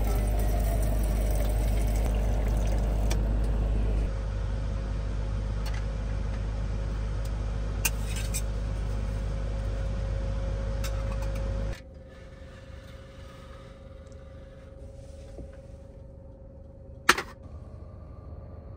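Electric jug-top water dispenser pump running with a steady hum as water pours into a metal camping cup, stopping about four seconds in. A lower hum goes on until it cuts off suddenly about twelve seconds in, and a single sharp knock comes near the end.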